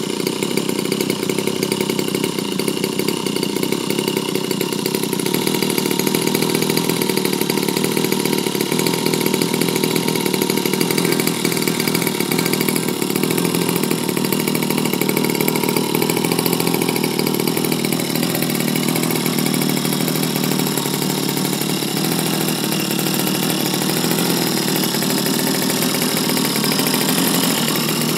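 Evolution 15cc single-cylinder two-stroke gasoline engine on a radio-control model plane, running steadily without a break on its first-ever run.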